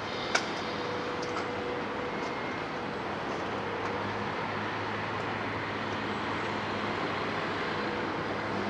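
Terex hydraulic excavator's diesel engine running steadily as it swings its sorting grab, with a sharp knock about half a second in and a few faint clicks from the grab working the demolition debris.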